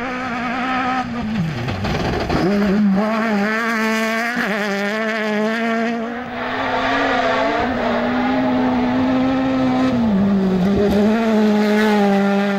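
Off-road rally buggy engine held at a steady high pitch under power. The pitch dips sharply about a second and a half in and climbs back, then drops a step near ten seconds.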